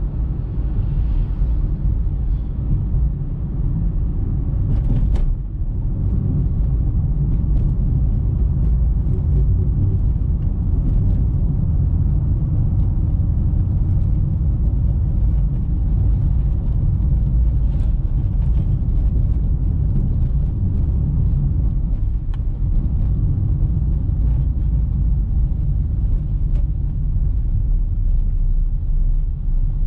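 Car driving along, heard from inside the cabin: a steady low rumble of tyres and engine, with a few faint ticks and a brief sharp noise about five seconds in.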